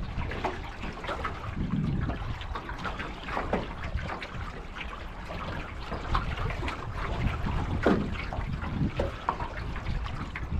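Water gurgling and splashing against the aluminium hull of a Grumman 17 canoe under sail, in small irregular splashes. Wind buffets the microphone now and then, most strongly about two seconds in.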